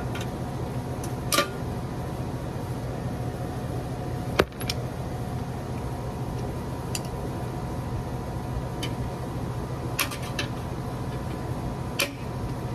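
Scattered metal clicks and snaps of pliers and a screwdriver working half-inch knockout seals out of a metal electrical box, the sharpest snap about four seconds in. A steady hum runs underneath.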